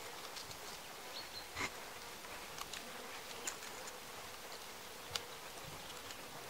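Faint woodland ambience of insects buzzing steadily, with a few small clicks.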